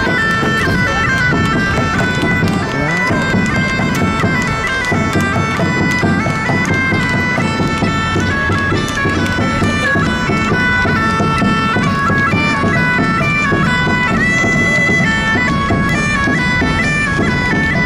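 Bagpipes played live by musicians: a continuous, loud melody that steps from note to note without pause.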